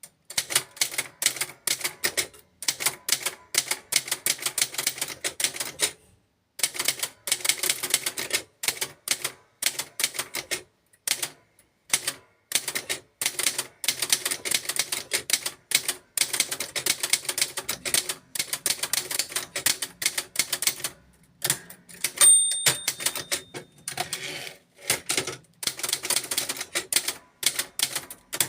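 1970s typewriter being typed on: rapid runs of sharp key strikes, several a second, broken by short pauses. The margin bell dings once about two-thirds of the way through.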